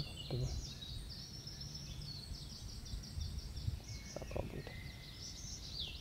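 Woodland songbirds singing over one another in quick chirps and trills, over a low steady rumble. Two short low-pitched sounds come near the start and about four seconds in.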